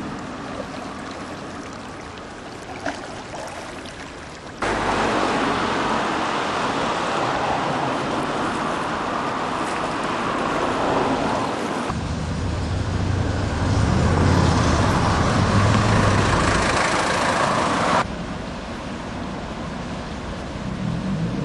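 Rushing floodwater with wind noise on the microphone, a steady noise that jumps in level at two abrupt cuts. A low engine hum joins about twelve seconds in.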